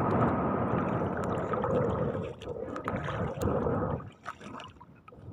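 Shallow seawater splashing and sloshing as a bamboo cover trap is pushed down into it and hands grope inside the trap. It dies down sharply about four seconds in.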